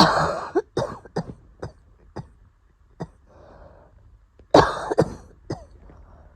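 A person coughing in an asthma attack: a hard cough followed by a run of short coughs, a breath drawn in, then another loud burst of coughs about four and a half seconds in.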